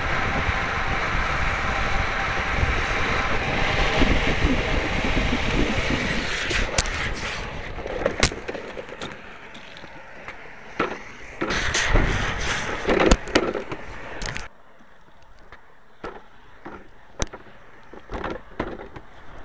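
Drift trike wheels rolling and sliding on asphalt with wind rushing over the camera. The noise eases about eight seconds in, with a few sharp clicks and knocks. About fourteen seconds in it cuts off suddenly to a much quieter stretch with scattered clicks.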